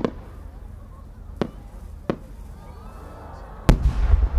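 Japanese chrysanthemum aerial firework shell: a few sharp pops from small bursts, then a heavy boom about three and a half seconds in that rumbles and echoes on.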